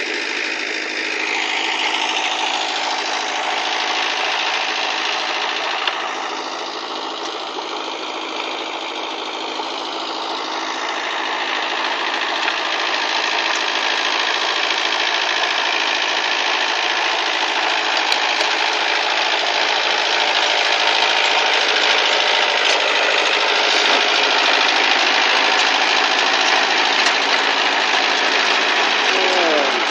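Kubota tractor's diesel engine running steadily while its rotary tiller works virgin ground, growing louder partway through.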